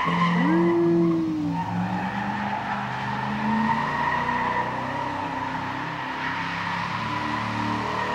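Corvette doing a burnout: tyres squealing steadily against the pavement while the engine runs hard. About a second in, one rev rises and falls.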